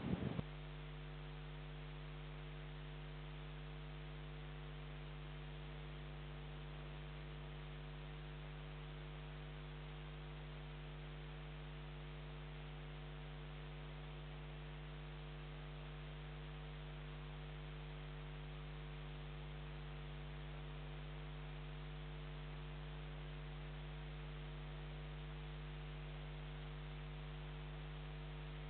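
Steady electrical mains hum, a low buzz with a stack of overtones over faint hiss, after a brief noise that cuts off at the very start.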